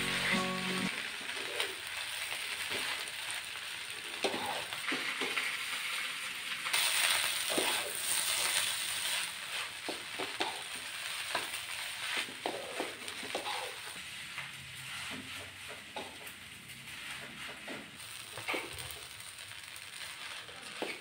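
Rice sizzling as it is stir-fried in a wok, turned with a wooden spatula that knocks and scrapes against the pan at irregular moments.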